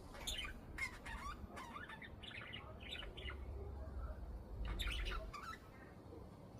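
Budgerigars chirping and chattering in quick short calls, a run of them through the first three seconds and another about five seconds in, over a low rumble.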